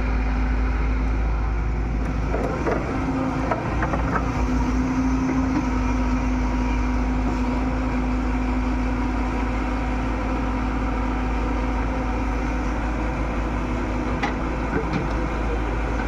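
Excavator's diesel engine running steadily with a constant drone, with a few faint knocks from the working machine about a quarter of the way in and again near the end.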